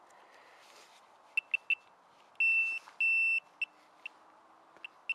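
Metal detector pinpointer beeping as it is probed in the dig hole: three quick high beeps, then two longer steady tones of about half a second each, then scattered single beeps. The beeps signal metal near the probe tip.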